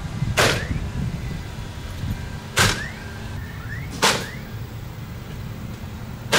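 Pneumatic nail gun driving nails into engineered-wood siding: four sharp shots roughly one and a half to two seconds apart, the last right at the end, over a steady low rumble.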